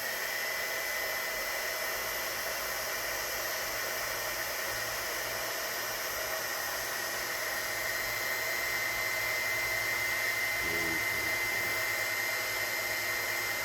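Heat gun blowing steadily, a hiss of hot air with a high, steady whine, used to shrink heat-shrink tubing over a cable.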